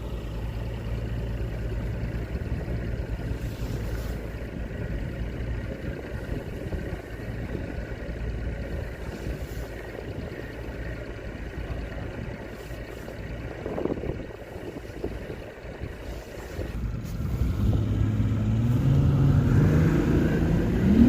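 Fishing boat's motor running steadily under a low rumble of wind and water noise, growing louder over the last few seconds.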